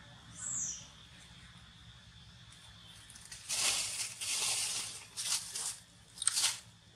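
Several bursts of dry rustling and crunching, the longest lasting about two seconds from halfway through, with a shorter one near the end. A faint steady high tone stops about three seconds in, and a brief falling high chirp sounds near the start.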